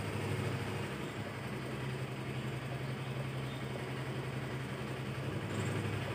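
Steady low hum under a faint even hiss of background noise, with no distinct events.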